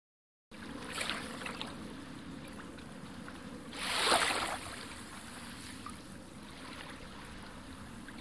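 A steady rushing, water-like noise that swells once about four seconds in.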